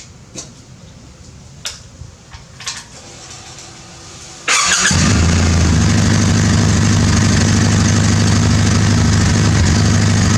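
Kawasaki W800's air-cooled parallel-twin engine started from cold, catching at once about four and a half seconds in and then idling steadily while it warms the oil for draining. Before the start there are a few clicks and a brief faint hum.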